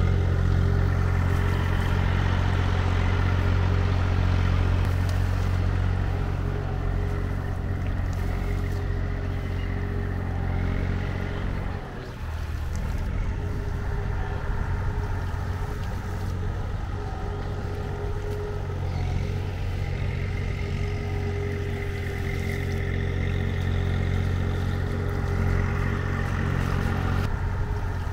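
An engine running steadily at a constant speed, dropping away briefly about twelve seconds in before carrying on.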